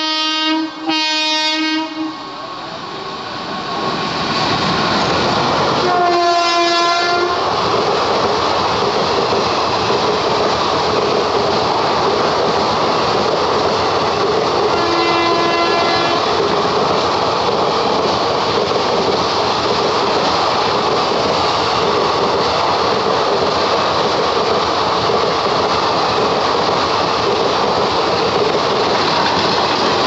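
WAP-4 electric locomotive's horn sounding as the express approaches at speed: two blasts at the start, another about six seconds in and a quieter one around fifteen seconds in. Under the horn, the coaches of the passing train set up a loud, steady rush and clatter of wheels on rails.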